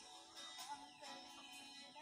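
Quiet background music with plucked notes over held tones.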